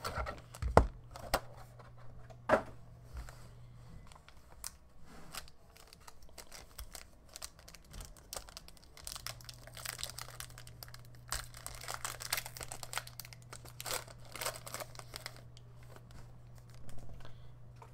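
A foil trading-card pack being handled, crinkled and torn open by hand, with a couple of sharp knocks from handling the card box about a second in and near three seconds. A low steady hum runs underneath and drops out for a few seconds near the middle.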